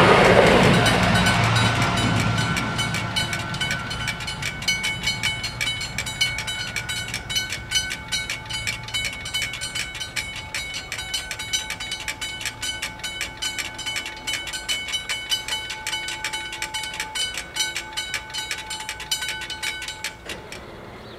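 Ferrovie del Sud Est ATR 220 diesel railcar passing over the level crossing, its rumble fading away over the first few seconds. The crossing bells ring in rapid, even strokes throughout and stop near the end.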